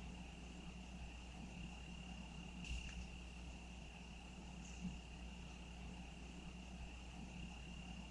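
Crickets trilling in one steady, unbroken high-pitched tone over a faint low hum, with two brief soft sounds about three and five seconds in.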